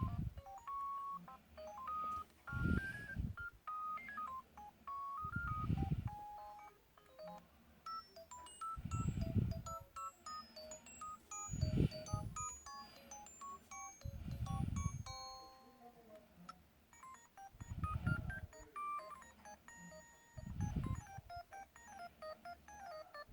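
Built-in ringtone of an LG-SU910 Cookie mobile phone playing: an electronic melody of short beeping notes over a low pulse about every three seconds.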